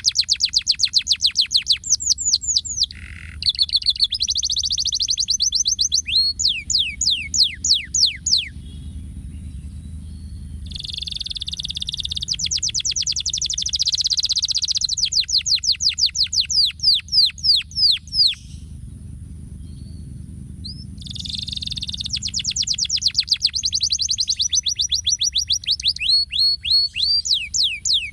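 Yellow domestic canary singing: fast runs of steeply falling whistled notes alternating with buzzy rolling trills, with two short breaks between phrases.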